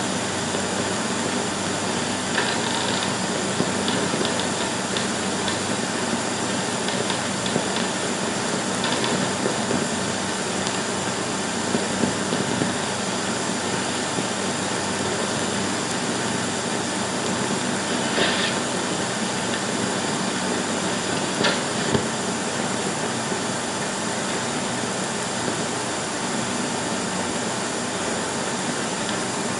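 Steady hiss and hum of an old 16mm film soundtrack, with a few faint clicks.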